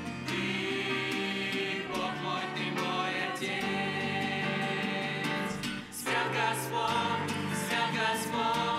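Church choir singing a worship song, the voices moving through sustained notes.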